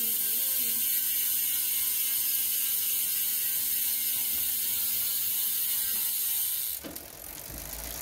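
Koozer XM390 rear hub freewheeling with the wheel spinning, its freehub pawls clicking so fast they blur into a steady ratcheting buzz. The buzz drops away abruptly near the end.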